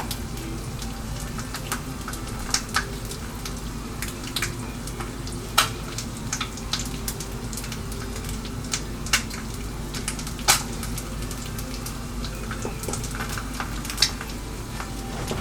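Egg frying sunny side up in a pan of olive oil and butter: a steady sizzle with a few sharp clicks and pops scattered through it, the loudest about five and ten seconds in.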